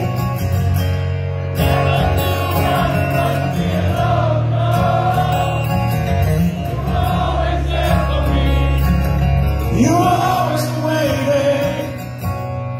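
Live acoustic rock ballad: acoustic guitar under long, wordless sung notes, with sustained bass notes beneath.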